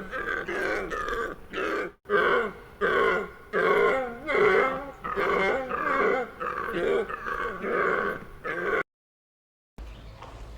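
An animal making short calls in a quick steady series, about two a second, cut off abruptly about nine seconds in.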